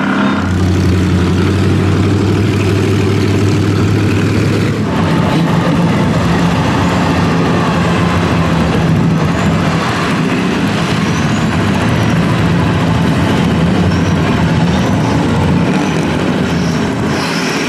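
Engines of off-road mud vehicles running steadily under load. A little under five seconds in, the engine note changes from one steady low tone to a somewhat higher one.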